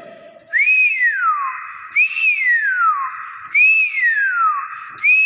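Nias hill myna whistling: four clear whistles about a second and a half apart, each a quick rise followed by a long falling glide. The last one starts near the end.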